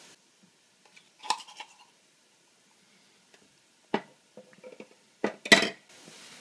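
Metal kitchen clinks and knocks: a knife scraping tomato paste from a small can, the emptied can set down on the stovetop, and a louder clank against the soup pot near the end. The sounds come as a few short, separate strikes, one with a brief metallic ring.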